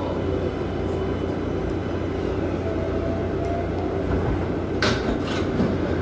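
New York City subway train heard from inside an R188 car on the 7 line, running with a steady low rumble and a faint motor whine as it pulls into a station. A couple of short sharp hissing noises come about five seconds in.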